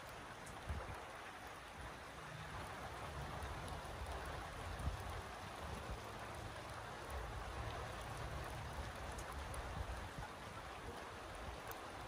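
Steady rain falling, an even hiss with scattered drop ticks, over a low rumble that comes and goes.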